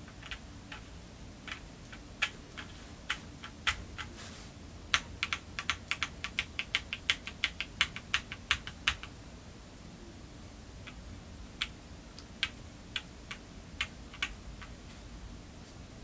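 Keystrokes on a gasket-mounted QK65 mechanical keyboard with an aluminum plate and Domikey Hush keycaps, pressed for a flex test. Scattered clicks at first, a quick run of typing through the middle, then a few single presses near the end.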